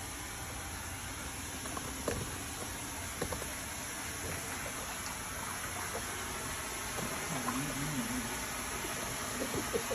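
Water sloshing and splashing in a dog's paddling pool over a steady hiss, with a few sharp splashes and a short wavering tone about seven seconds in.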